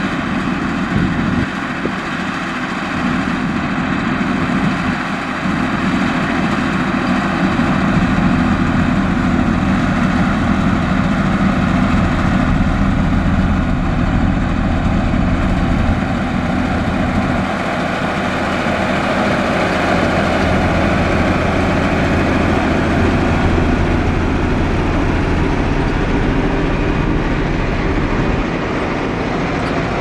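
Heavy diesel engines of a motor grader and a road roller running steadily at work, a loud continuous rumble with no letup.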